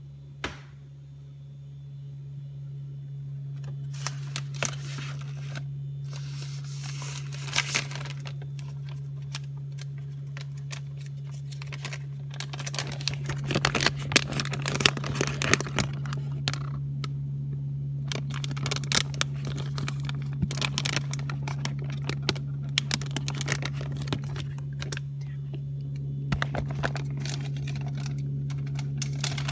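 Plastic cheese packaging being handled, crinkled and torn open in many irregular crackling bursts. A steady low hum runs underneath.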